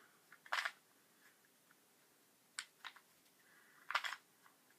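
Rubik's cube being twisted by hand: about four short plastic clicks, spread unevenly over the seconds, with quiet between them.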